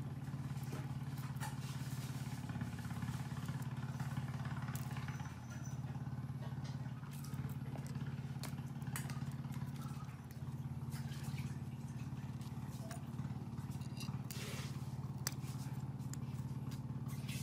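A steady low mechanical hum throughout, with scattered light clicks and taps of small metal bicycle caliper-brake parts being handled and fitted together.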